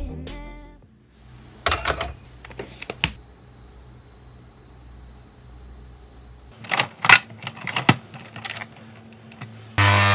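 Clicks and clacks of a coffee capsule being handled and loaded into a capsule coffee machine. Near the end the machine's pump switches on with a loud, steady buzz as it starts brewing.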